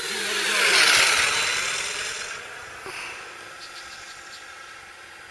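RC model Cessna 182 airplane flying past low. Its propeller and motor sound swells to a loud peak about a second in, drops in pitch as it passes, then fades away.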